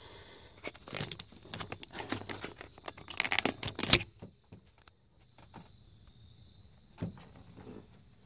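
Handling noise as the camera is picked up and moved by hand: rustling and crinkling against the microphone with a run of clicks and knocks, the sharpest about four seconds in, then quieter with one more knock near the end.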